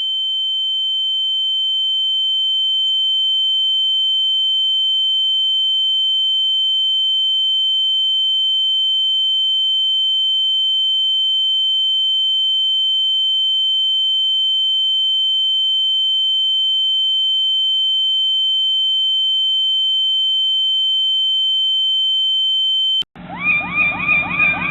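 A steady, high-pitched electronic tone: a single pure pitch held unchanged for over twenty seconds, then cut off abruptly. Near the end a different electronic sound starts, a rapid rhythmic run of repeated falling chirps.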